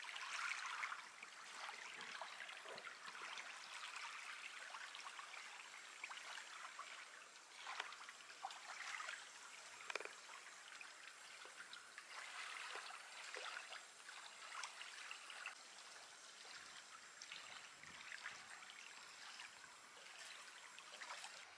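Small waves lapping on a lake's sandy, pebbly shore: a faint, soft trickling with many small irregular splashes.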